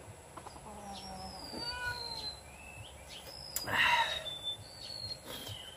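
Cat meowing several times, the loudest and harshest meow a little past halfway through, with thin high chirps in between.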